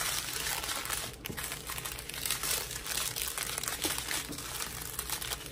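Strips of small plastic zip-lock bags of diamond painting drills crinkling as they are handled and shuffled by hand.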